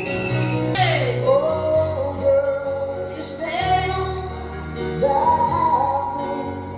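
Music with a woman's voice singing long sliding notes, including a steep downward swoop about a second in, over steady held low bass notes.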